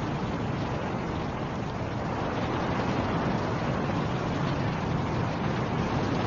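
Snowstorm wind blowing in a steady, dense rush that swells slowly.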